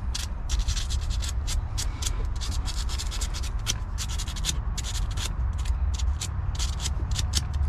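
Sandpaper rubbed quickly back and forth over a battery cable's metal ring terminal, about four scratchy strokes a second, cleaning the terminal before it is hooked up to the battery. A steady low rumble runs underneath.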